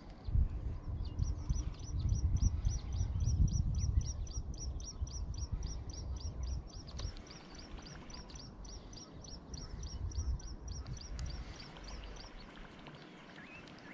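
A bird calling over and over, a quick run of short high downward chirps about three to four a second that stops near the end. Under it is a low, uneven rumble of wind and handling on the microphone.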